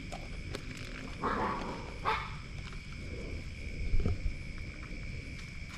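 Dogs barking a few short times, over a steady high insect drone. A thump about four seconds in is the loudest sound.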